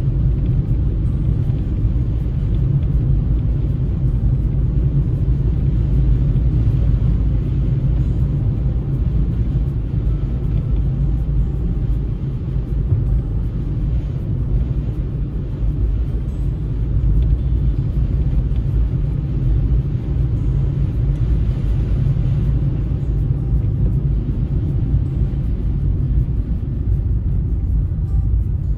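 Steady low rumble of a car driving on a snow-covered road: tyre and engine noise.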